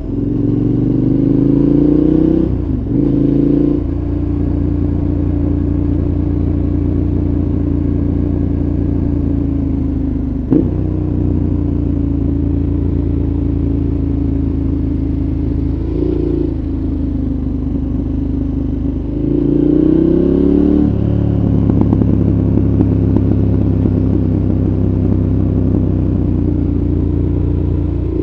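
KTM 1190 Adventure's V-twin engine through a Giannelli exhaust with its dB killer fitted. Revs rise in the first couple of seconds, drop with a gear change around three seconds in, then hold fairly steady. Revs climb again about twenty seconds in before settling.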